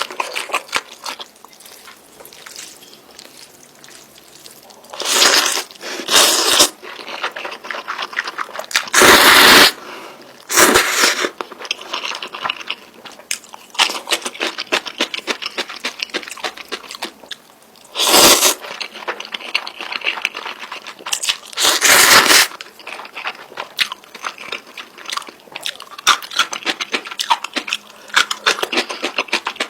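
Close-miked eating of Samyang spicy instant noodles with fried egg and sausage: wet chewing and mouth clicks throughout, broken by about five short, louder rushing bursts.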